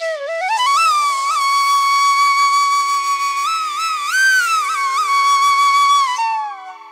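Background music: a flute glides up into a long held note, bends higher about four seconds in and settles back, then trails off about six seconds in, over a steady drone.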